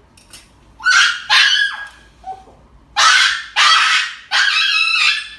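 A dog screaming in about five loud, high-pitched cries in a row, out of fear of an injection that has not yet been given.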